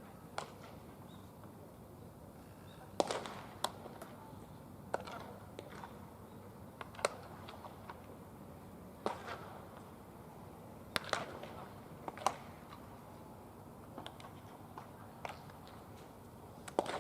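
Sharp pops of a baseball smacking into leather gloves during pitching warm-ups, a dozen or so single cracks spaced irregularly about one to two seconds apart, over a low background hum of the ballpark.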